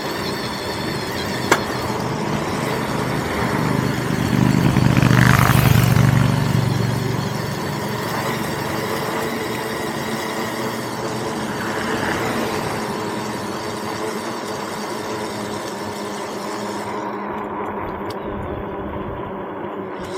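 Steady riding noise from a moving vehicle: a constant motor hum under wind and road hiss. A louder low rumble swells and fades about five seconds in, and there is one sharp click early on.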